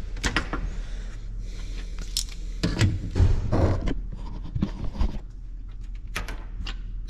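Clicks, knocks and scraping from hand tools and solar cable being handled on a steel workbench, with a few heavier thumps a little before the middle, over a steady low hum.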